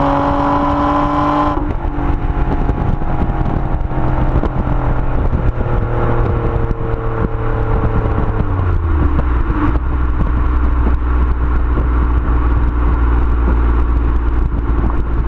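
Nissan Maxima's 3.5-litre V6 exhaust at high revs, then the throttle closes about a second and a half in and the revs fall steadily as the car slows, settling into a low steady drone for the last several seconds, with road and wind noise throughout.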